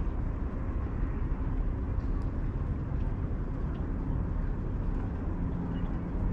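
Steady low outdoor rumble with no distinct event, and a faint low hum that grows a little stronger near the end.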